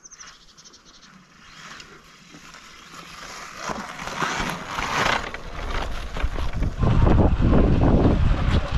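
Wind buffeting the camera microphone, mixed with tyre rumble, as an electric dirt bike gets moving over slickrock and sand. Fairly quiet at first, the noise builds from about three and a half seconds in and is loud and heavy from about seven seconds on.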